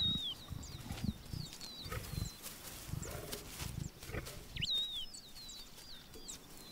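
Leopards giving low, irregular grunts that stop about four and a half seconds in, over repeated short, sweeping bird chirps.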